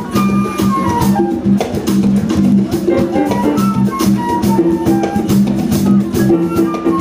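Live Brazilian jazz band playing a baião: a drum kit keeps a steady beat of regular strokes under low sustained bass notes, with a short-note melodic line above.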